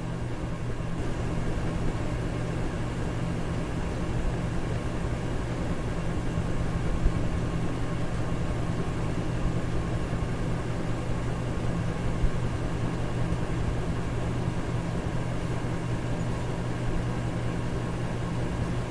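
Electric fan running steadily: an even rushing of air over a low motor hum.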